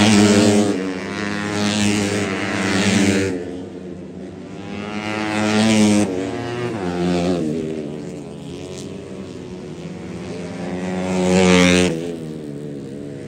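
Road-racing motorcycles passing at high revs one after another. Their engine pitch rises and falls, and the sound swells loudest as bikes go by near the start, around three and six seconds in, and again near the end.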